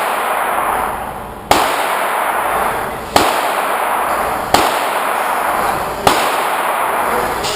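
Pistol shots fired at a steady pace, four of them about a second and a half apart, each followed by a long echoing decay.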